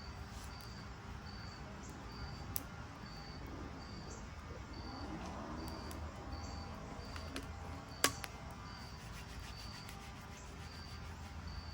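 An insect chirping at a high pitch in an even rhythm, nearly two chirps a second, over a low steady hum, with one sharp click about eight seconds in.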